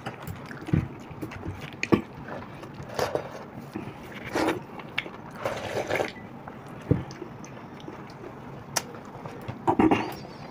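Close-up eating sounds of fermented water rice (pakhala bhata) being eaten by hand: irregular chewing, slurps and wet squelches of fingers mixing rice in its water, with a few sharp clicks.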